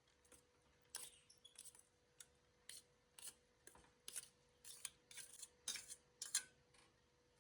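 A run of about fifteen short, sharp clicks or snips at an uneven pace, beginning about a second in and stopping near the end.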